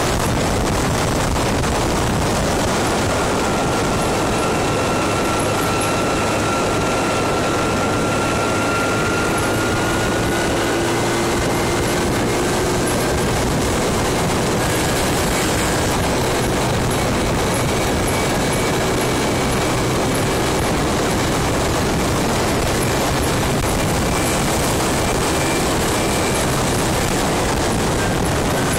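Steady rush of wind and road noise from riding a motor scooter, with a faint engine whine underneath that slowly drifts in pitch.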